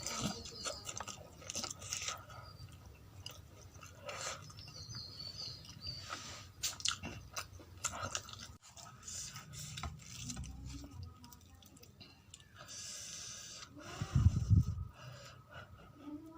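Close-miked chewing and biting of puri with potato curry: wet mouth sounds with scattered small crunches and clicks. A loud low thump about fourteen seconds in.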